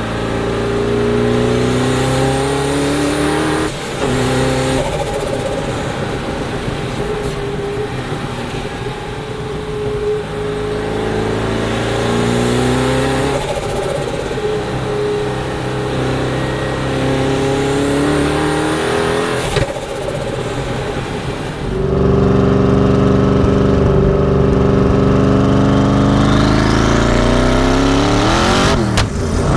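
Twin-turbo Chevrolet LS7 V8 of the Mazzanti Evantra Millecavalli accelerating hard through several gears, the revs climbing and then dropping at each shift. A high turbo whistle rises with the revs. The engine gets louder for a long pull in the last third, then the revs fall sharply near the end.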